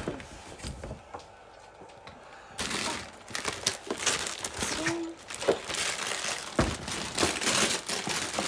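Paper gift bags and wrapping paper rustling and crinkling as they are handled and pulled open, starting about two and a half seconds in.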